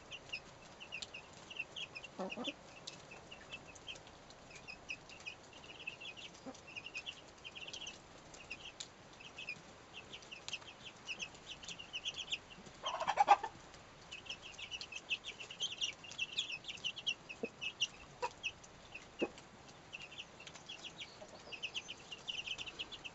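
Faverolles chicks about two and a half weeks old peeping in quick runs of short, high cheeps that go on almost without pause. About halfway through there is one louder, lower call lasting under a second.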